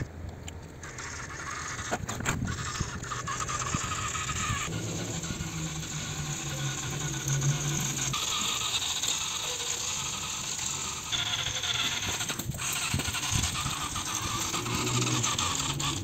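Small electric motor and gears of a homemade soda-can RC toy tractor whirring as it drives, with a light gear rattle. The pitch of the whir changes abruptly a few times.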